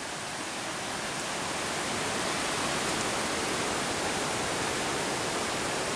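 Steady rush of running water from a small jungle waterfall and stream, growing slightly louder over the first couple of seconds.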